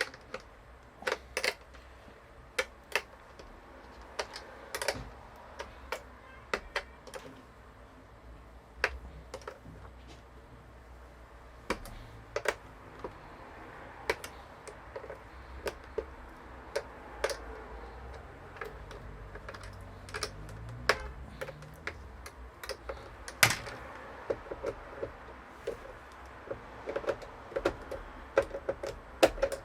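Irregular sharp clicks and taps of screws and a screwdriver against the plastic and metal casing of a DJ controller as it is screwed back together.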